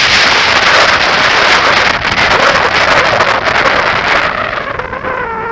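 Wind rushing over the microphone of a bicycle-mounted camera while riding in traffic. It eases off about four seconds in, as the bike slows. A brief wavering pitched sound follows near the end.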